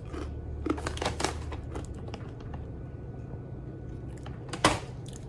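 Crunching of a crisp tortilla-style chip being bitten and chewed: a run of short crackles in the first two seconds, then one louder sharp crackle about four and a half seconds in.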